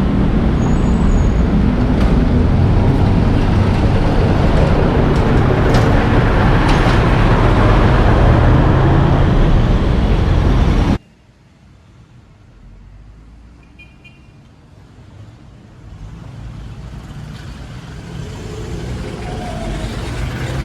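Street traffic with heavy vehicles passing: a loud, steady rumble that cuts off suddenly about halfway, leaving a much quieter traffic sound that slowly builds up again.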